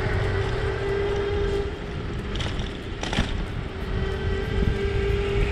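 Riding an electric bike along a city street: road and wind rumble with a steady whine, and two short knocks about two and a half and three seconds in.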